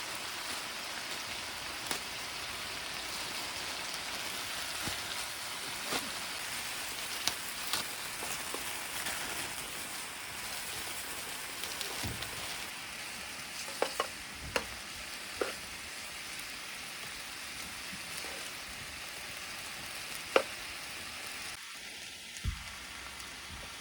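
Food sizzling in a hot pan, a steady frying hiss, with sharp clicks now and then.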